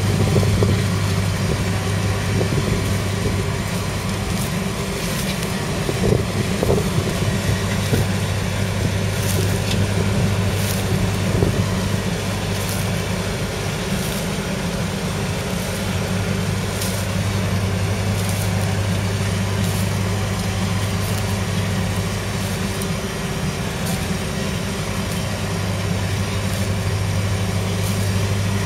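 Kubota M7171 Premium KVT tractor's 6.1-litre diesel engine running steadily under load, pulling a reversible plough through stubble.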